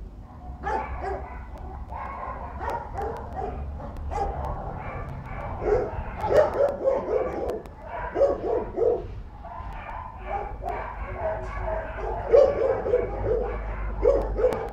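Dogs barking repeatedly in quick runs of short barks, heaviest in the middle and near the end.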